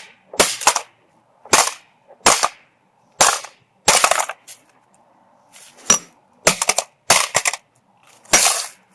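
Hammer repeatedly striking a cheap plastic alarm clock: about a dozen sharp, loud cracking blows at an irregular pace, with a short lull near the middle.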